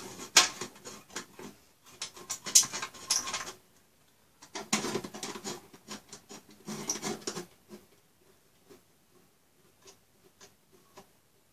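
Hands rubbing and patting on the plastic top cover of an HP ProLiant Gen8 MicroServer case, making scratchy rustles and light clicks. These come in two stretches of a few seconds each, then thin out to a few faint ticks.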